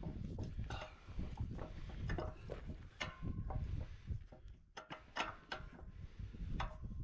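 Steel pin and bracket parts of an applicator gauge wheel clinking and knocking as the pin is worked into the bracket holes, several separate knocks, over a steady low rumble.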